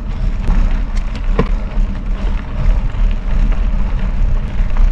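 Mountain bike being ridden up a gravel road: tyres rolling and crunching over the gravel under a steady low rumble, with scattered small clicks.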